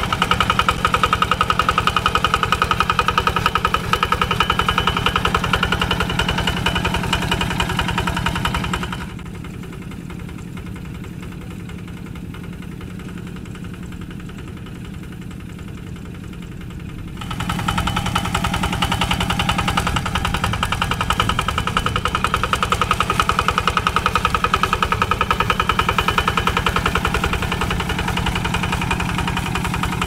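Single-cylinder Kubota diesel engine of a Quick two-wheel hand tractor running steadily under ploughing load, with a fast, even chugging pulse. From about nine seconds in until about seventeen it is quieter and duller, then loud and clear again.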